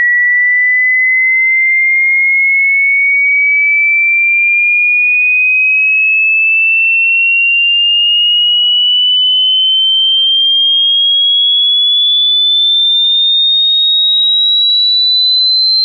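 A pure sine-wave test tone sweeping slowly and steadily upward in pitch, from about 1.9 kHz to about 4 kHz, at a constant level.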